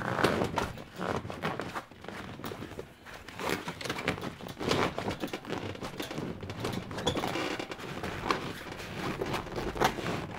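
Fabric rustling and scuffing, with irregular soft knocks, as a spray cover's sewn-in rope edge is pressed by hand down between a folding kayak's cockpit coaming and deck.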